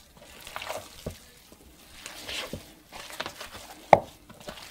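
Hands kneading and squeezing ground venison in a plastic bowl: irregular wet squelches and sticky pulling sounds, the meat so tacky it clings to the hands. A sharp knock about four seconds in is the loudest sound.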